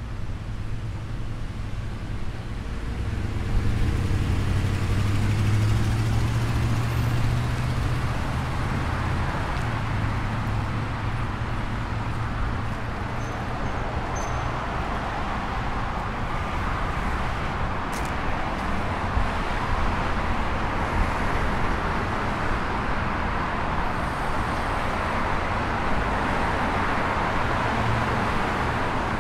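Road traffic: cars passing on a street, a steady wash of tyre and engine noise. A low engine rumble from a nearby vehicle swells a few seconds in, and there is a single sharp click about eighteen seconds in.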